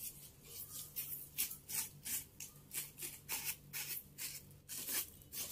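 Broom sweeping dried rose petals across a ceramic tile floor: quick, rhythmic brushing strokes, about three a second.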